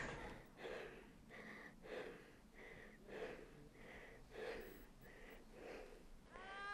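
Faint, quick, shallow breathing of an elderly woman who is gravely ill in bed, about two breaths a second.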